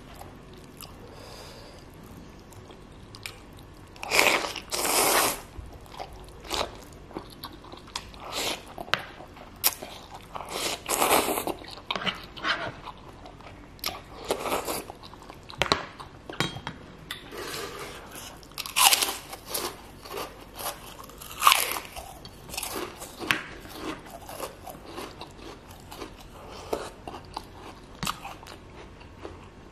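Close-up mouth sounds of eating Indomie goreng instant fried noodles with tekwan fish balls: chewing and slurping in irregular bursts, with a few longer slurps and some sharp, loud smacks.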